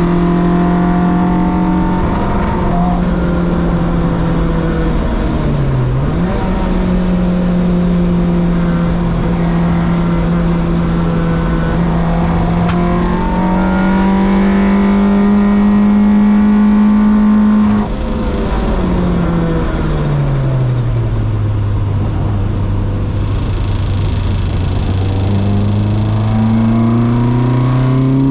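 Track-day car's engine pulling at steady high revs, with a brief lift about six seconds in. About 18 seconds in the revs fall away sharply and stay low for several seconds, then climb again near the end.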